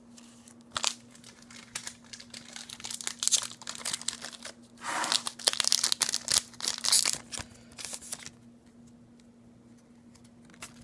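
A Pokémon TCG booster pack's foil wrapper being torn open and crinkled, in irregular bursts of crackling that are loudest a little past the middle and stop about three-quarters of the way through.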